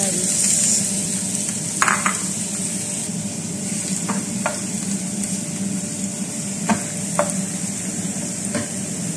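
Chopped onion and garlic sizzling in hot oil in a nonstick frying pan, stirred with a wooden spoon that knocks against the pan in a few sharp taps.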